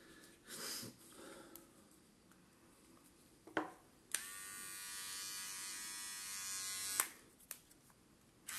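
Electric hair and beard trimmer switched on a little over four seconds in, running with a steady buzz for about three seconds, then clicking off.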